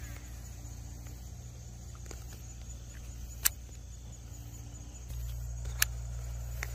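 Outdoor ambience: a steady low rumble with faint insects chirping high above it, and two sharp clicks, one about halfway through and one near the end. The rumble grows louder about five seconds in.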